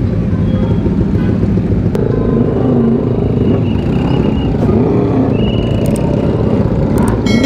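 Motorcycle engine running as the bike rides off among a group of other motorcycles, its pitch rising and falling, over a heavy low rumble.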